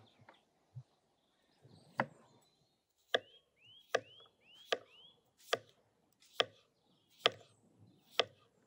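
Kitchen knife slicing a raw potato into rounds on a wooden cutting board: the blade knocks sharply on the board about eight times, at a steady pace of a little more than one a second, starting about two seconds in.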